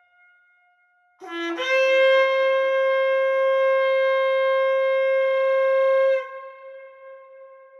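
Shofar blown in one long blast of about five seconds. It starts on a low note that jumps up to a steady higher note, then drops away to a faint lingering tone.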